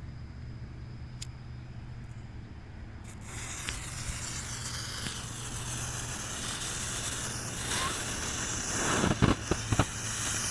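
Smoke bomb firework hissing steadily as it burns and spews smoke, starting about three seconds in. Several sharp cracks come near the end.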